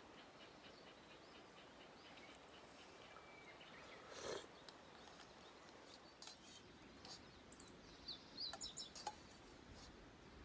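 Near silence with faint bird chirps, a short run of them near the end, and a few soft clicks.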